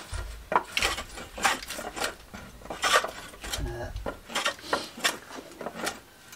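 A hand plane shaving a wooden hoe handle: short, uneven scraping strokes of the blade along the wood, about two or three a second, with a couple of dull low knocks.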